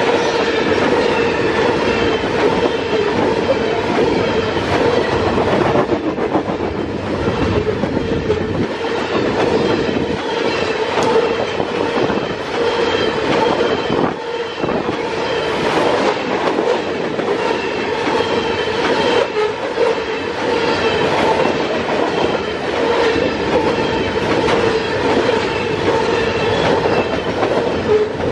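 Loaded coal hopper cars of a freight train rolling past close by at speed: a steady rumble and clatter of steel wheels on the rails, with a steady whine running under it.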